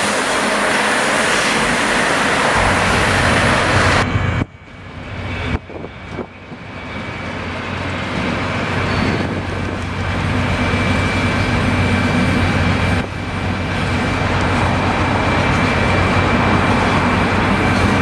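Double-deck regional passenger train passing close by, its wheels and coaches rushing over the rails. It cuts off abruptly about four seconds in, and a slower double-deck regional train rumbles in over curved station track, growing louder, with a thin steady high tone running along over its noise.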